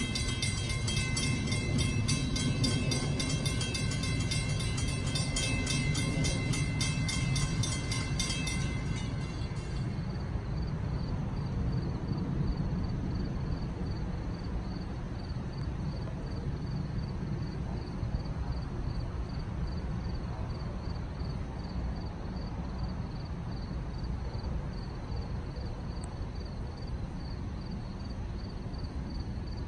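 Railroad grade-crossing bell ringing rapidly over a low steady rumble; the bell stops about nine seconds in, leaving the rumble and a faint pulsing high tone.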